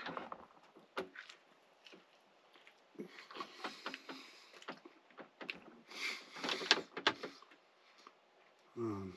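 Eating at a table: chewing a soft taco, with scattered clicks and rustles as the taco and plate are handled, and a short contented "mmm" hum near the end.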